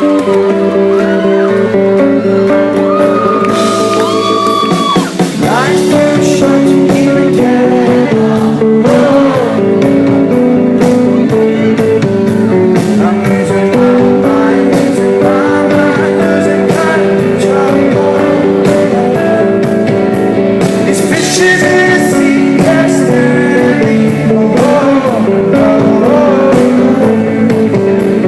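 A rock band playing loudly at a live concert: guitars over steady, held chords, with a lead singer.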